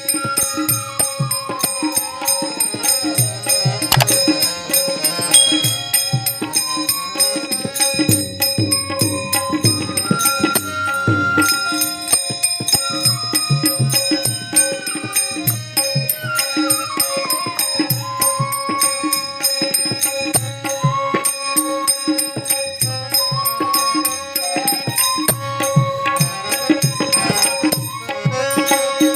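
Marathi devotional bhajan music: small hand cymbals ring and jingle over steady drum beats, under a melody that slides up and down.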